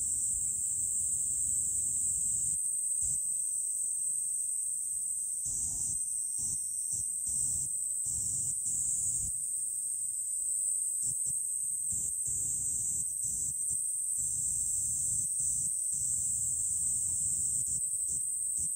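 Insects trilling in the trees in one unbroken high-pitched drone, with a low rumble that comes and goes beneath it.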